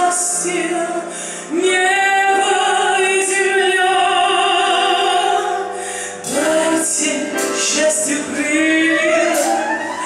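A woman singing live into a microphone over amplified backing music, holding long notes with a wide vibrato. One phrase ends about six seconds in and the next begins.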